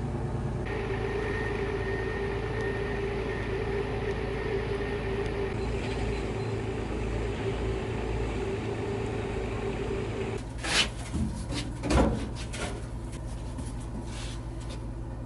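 A steady mechanical hum with a faint whine over it, stopping about ten seconds in. A few knocks and clatters follow.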